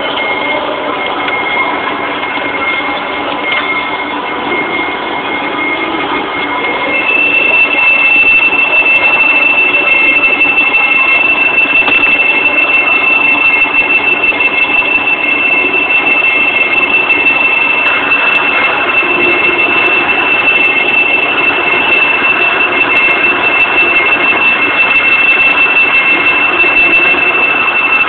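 Doosan Puma SY2000 twin-spindle CNC lathe running, a steady high whine over machine noise. About seven seconds in, the whine steps up to a higher, stronger tone and the machine gets louder.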